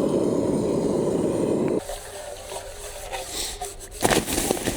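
Water poured into a greasy pan, an even splashing rush that cuts off abruptly about two seconds in. A few clinks and knocks of the pan near the end.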